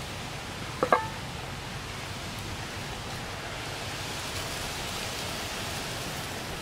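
Steady wind noise on the microphone, with one short metallic clink about a second in.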